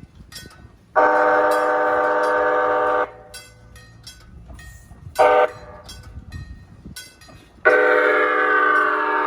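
Horn of Nippon Sharyo P865 light-rail car 144 sounding three times: a long blast about a second in, a short toot near the middle, and another long blast starting near the end. Each blast is a steady chord of several tones.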